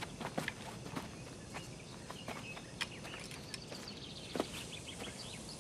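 Scattered light clicks and knocks at an uneven pace, with one heavier knock about four seconds in, over a faint steady hiss.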